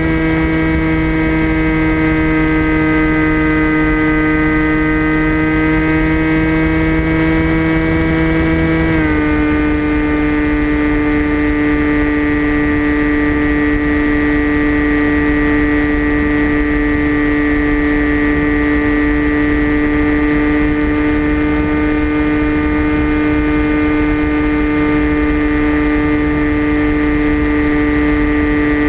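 The brushless motor and pusher propeller of a TBS Caipirinha flying wing, heard from its onboard camera as a loud, steady, high drone over low wind noise. About nine seconds in the pitch drops a little as the motor slows, then holds steady.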